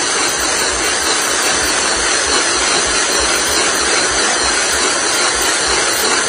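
Silage baler machine running: a loud, steady mechanical noise with a regular low thump about three times a second.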